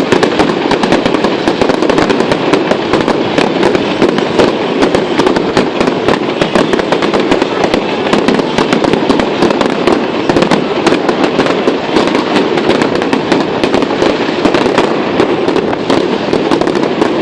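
Fireworks display: a dense, continuous run of bangs and crackles with no break.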